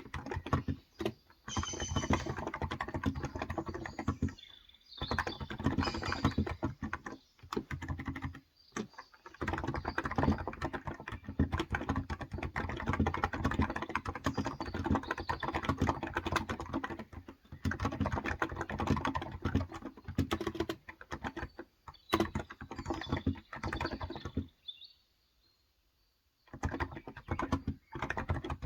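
Fast typing on a Cox Endeavor electrostatic capacitive (Topre-style) keyboard with light 35 g switches, dense keystrokes in runs broken by short pauses, the longest nearly silent about 25 seconds in. Birds chirp faintly at times behind it.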